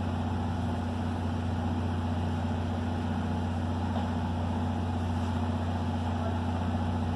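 An engine idling with a steady, unchanging low hum.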